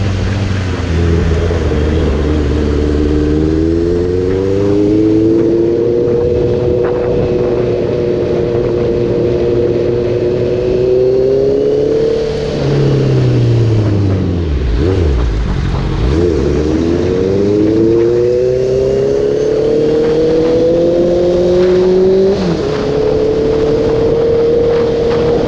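Motorcycle engine under way, its pitch climbing as it accelerates, holding steady, then falling away as the bike slows about halfway through. It picks up again with a rising pitch, and the pitch drops sharply at a gear change near the end.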